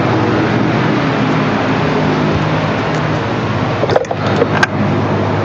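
Steady, loud mechanical drone with a low hum running under it, with a few sharp clicks and knocks about four seconds in.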